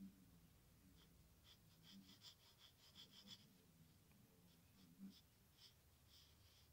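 Faint scratching of a graphite pencil sketching on lined notebook paper: runs of short, quick strokes, busiest from about one and a half to three and a half seconds in and again near the end.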